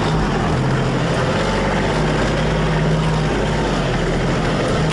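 Tractor engine running steadily while the tractor drives along, a steady low drone.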